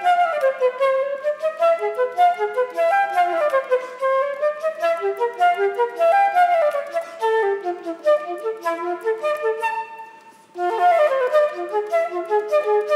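Solo concert flute playing fast runs of notes that sweep up and down, with a short pause about ten seconds in before the runs resume.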